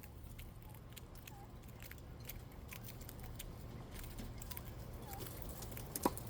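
Bobwhite quail giving a few soft, faint peeps, with scattered light ticks and clicks among them. One sharper short call comes near the end.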